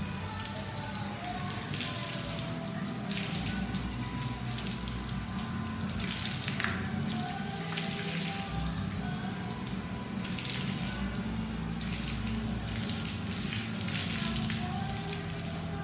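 Water poured from a bucket splashing over a bare steel car body panel and running off onto the floor, in several pours, under background music.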